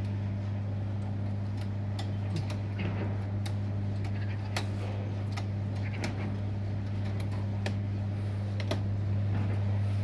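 Scattered small clicks and snips of a cable-TV wire being handled and cut with hand pliers, over a steady low hum.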